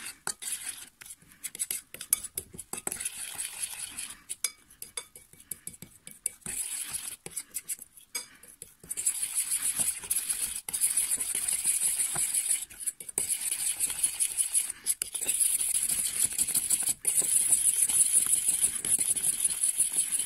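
A metal fork stirring a thick paste of salt, flour, baking powder and water in a glass bowl, scraping and clinking against the glass. The strokes are sparse at first, then from about nine seconds in the stirring becomes fast, steady and louder.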